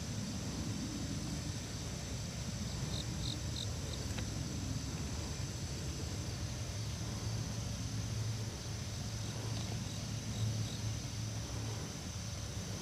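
Insects chirring steadily over a low rumbling background, with a few short high chirps about three seconds in.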